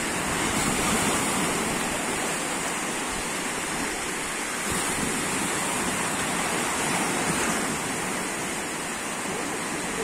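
Sea surf washing onto the shore: a steady rushing noise that swells and eases slightly.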